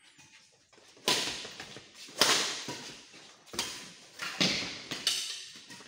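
Badminton rally: five sharp racket strikes on the shuttlecock, about a second apart, each ringing on in the hall's echo.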